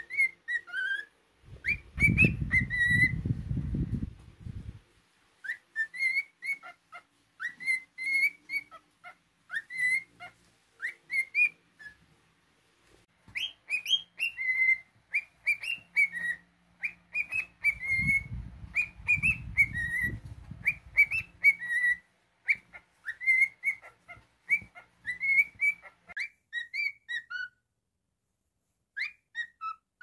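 Cockatiel whistling a learned military tune in phrased runs of short, clear, mostly rising notes, pausing briefly about twelve seconds in. Two stretches of low muffled noise lie under the whistling, early on and again about two-thirds of the way through.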